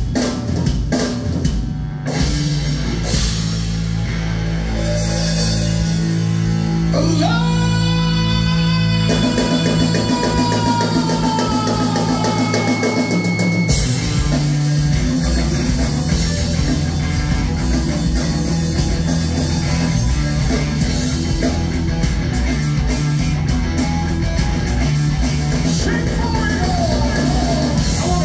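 Live rock band playing: drum kit, electric guitars and bass, with singing. About seven seconds in, a long note slides up and is held for several seconds, slowly sagging in pitch.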